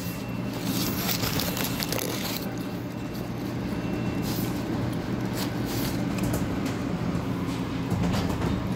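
Foil food wrapper and a plastic bag crinkling and rustling as they are handled, over a steady low hum of back-of-house kitchen machinery. A faint high whine stops about four seconds in.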